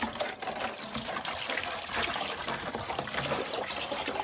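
Water splashing and trickling in a metal basin as a six-banded armadillo is scrubbed by hand and lifted out, water dribbling off its shell.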